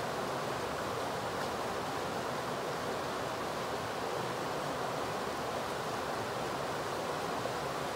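Small river rushing over a shallow rocky riffle, a steady, even sound of running water.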